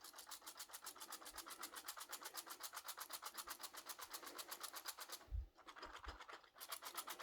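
Keys of a Razer Huntsman keyboard with linear optical switches being tapped rapidly, an even run of about ten clicks a second. The run stops about five seconds in and starts again after a short pause.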